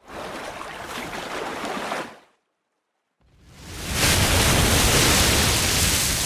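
Ocean-surf sound effect for an animated logo. A rush of surf runs for about two seconds and breaks off, and after a second's silence a louder wave swells in and starts to fade near the end.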